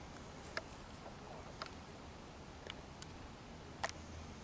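Four faint, sharp ticks, about a second apart, over a quiet background hiss.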